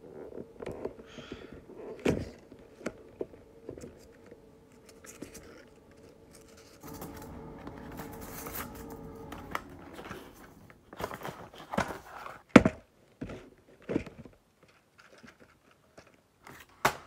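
Cardboard toy box and its packaging being handled and opened on a tabletop: scattered taps, thunks, rustles and scrapes of cardboard and plastic, with a few sharp knocks in the later part, the loudest about three-quarters of the way through.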